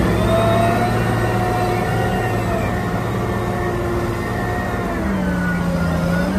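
Caterpillar 990 wheel loader's diesel engine running under load as it raises and tips its bucket into a truck. Its pitch shifts as it goes and dips a little about five seconds in.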